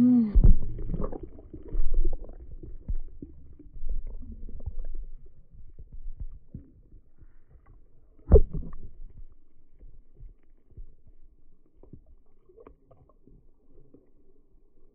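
Muffled underwater sound from a camera held below the surface of a swimming pool: low rumbling of moving water with irregular dull knocks and bubbling, fading over time, with one sharper knock about eight seconds in.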